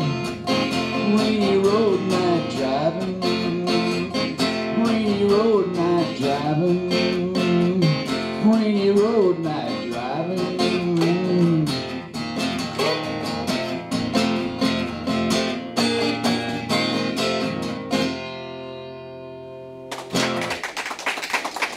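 Acoustic guitar strummed through a song's closing bars, with a wordless vocal line gliding over it; the last chord rings out and fades, then clapping breaks out near the end.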